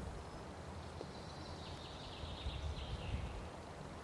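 Outdoor background with a steady low wind rumble. A faint, high bird twittering runs for about two seconds in the middle.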